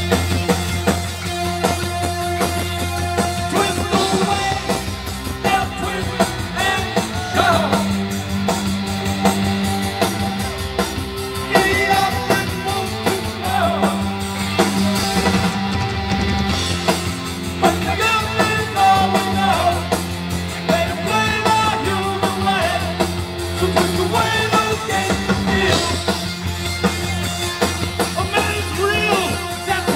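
New wave rock band playing live: electric guitars, drum kit, bass and keyboards, with a singer's lead vocal over a steady driving beat.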